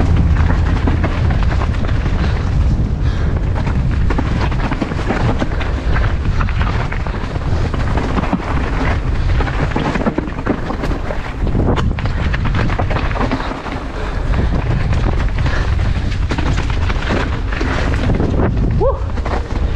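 Wind buffeting an action-camera microphone while a mountain bike rides fast down a rocky dirt trail, with tyres crunching over loose stones and the bike rattling and clattering.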